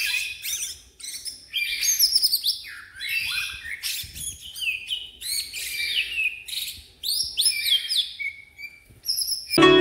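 Caged green leafbird (cucak ijo) in breeding condition singing: phrases of varied chirps and sliding whistles with short pauses between them. Plucked harp music comes in just before the end.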